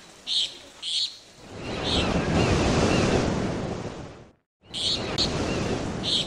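Surf washing in, swelling into a long wash of wave noise in the middle, with short bird chirps every second or so; the sound cuts out briefly about four seconds in, then resumes.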